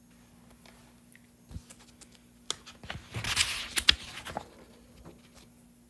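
Scattered light clicks and taps, with a short cluster of louder clicks and a brief rustle around three to four seconds in, over a faint steady electrical hum.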